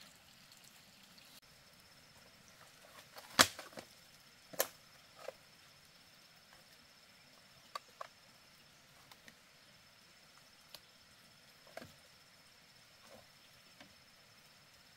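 A few sharp knocks or clicks at irregular times. The loudest comes about three and a half seconds in, another about a second later, and fainter taps follow.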